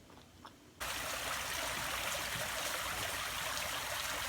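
Near silence, then about a second in a steady sound of rushing, trickling water cuts in abruptly and runs on evenly.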